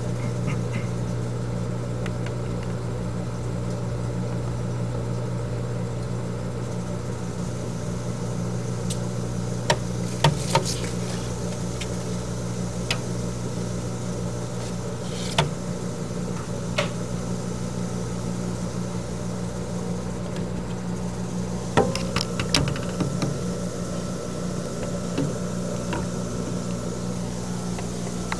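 A steady low machine hum with a slow pulse underneath, broken by a few short sharp clicks, three of them close together about a third of the way in and a small cluster about three-quarters through.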